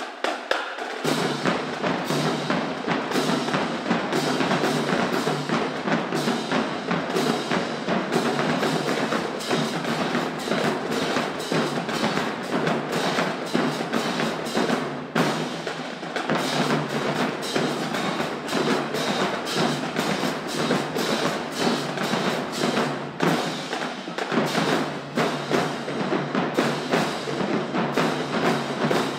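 High school marching band playing, with drums and percussion strongly to the fore; it comes in sharply about a second in.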